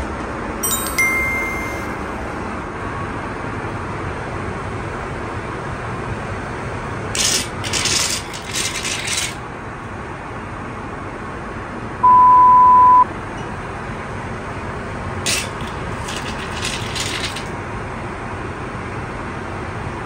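Steady Airbus A380 cabin noise, with a knock as the lavatory toilet lid is moved about a second in. An automatic faucet runs water into the sink in two short hissing bursts, around seven and fifteen seconds in, and between them a single one-second beep sounds.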